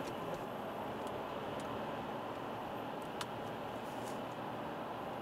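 Cabin noise of an Alfa Romeo 159 with the 1.9 JTDM four-cylinder turbodiesel, cruising at steady speed: an even engine and tyre hum, with a few faint clicks.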